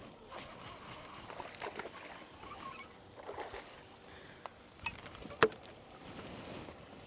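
Water lapping against a boat hull, with scattered small clicks and one sharp knock about five and a half seconds in.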